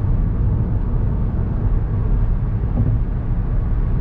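A car driving: a steady low rumble of road and engine noise.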